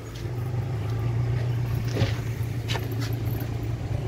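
Refrigerated delivery van running while parked: a steady low hum. A few sharp knocks come about halfway through, the loudest first.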